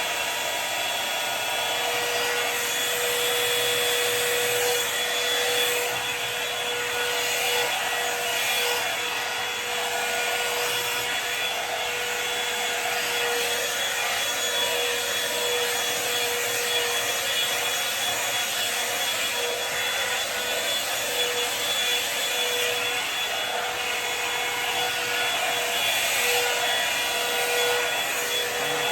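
Handheld hair dryer running steadily: a constant rush of air with a steady motor whine.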